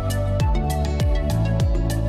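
Background music with a steady beat: deep kick-drum thuds about twice a second, crisp high ticks and held chords.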